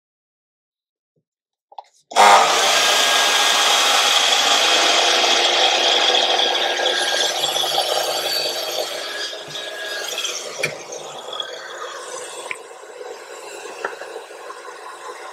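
Festool KAPEX KSC 60 cordless sliding mitre saw starting suddenly about two seconds in and cutting a mitre through a length of architrave. The loud cut slowly tapers into a quieter steady hum with a few light ticks, and the hum falls in pitch as it winds down at the very end.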